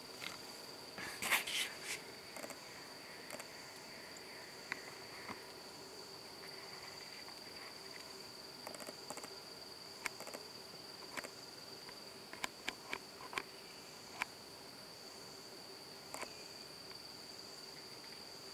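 Insect trilling steadily at one high pitch, with scattered sharp clicks and snaps over it: a loud cluster near the start and a quick run of them about two-thirds of the way through.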